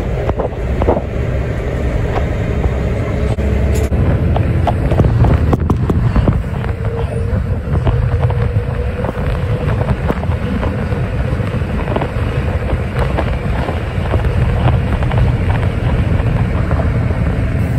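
Cabin noise of a 1990s city bus driving at road speed: a deep, steady engine and road rumble with a faint steady whine, and frequent rattles and knocks from the body and fittings.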